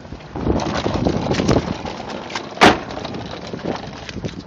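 A rough scraping clatter, then one sharp knock about two-thirds of the way through, followed by lighter clatter.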